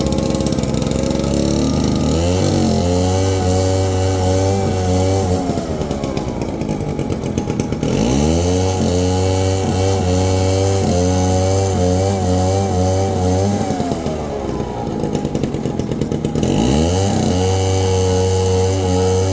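Vintage chainsaw engine running and revved up to full throttle three times. Each time it holds at high revs for several seconds, then drops back toward idle.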